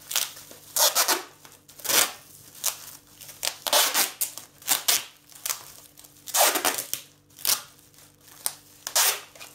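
Wide packing tape being pulled off its roll and wound tightly around a plastic-bag food bundle: repeated rasping rips, about one a second.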